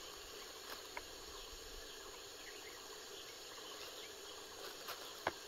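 Faint outdoor background of insects chirping, with a soft click about a second in and another near the end.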